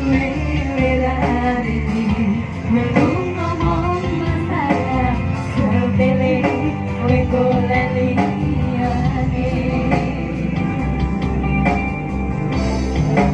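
Live band music with two women singing into microphones over keyboard, drums and bass, amplified through a loudspeaker sound system.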